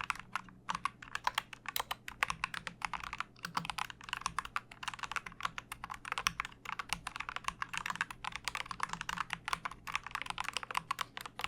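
Dark Project KD87A mechanical keyboard being typed on quickly: a fast, dense run of key clicks with a couple of brief pauses.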